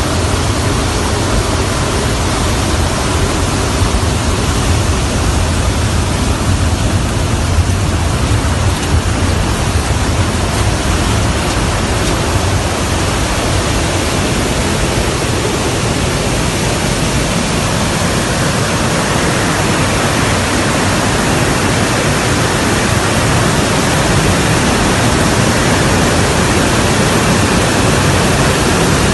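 Steady roar of jet aircraft cabin noise, engines and rushing air heard from inside an Il-76 transport in flight. A deep hum under the hiss for the first half gives way to a brighter hiss from about eighteen seconds in.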